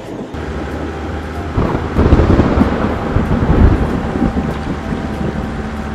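Sound effects of a truck engine running under low, rolling thunder. The rumble swells about two seconds in and eases off toward the end.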